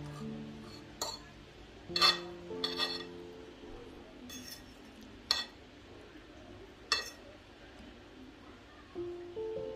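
Metal fork clinking and scraping against a ceramic plate as it cuts into a baked eggplant: about six sharp clinks, the loudest around two seconds in. Soft background music plays underneath.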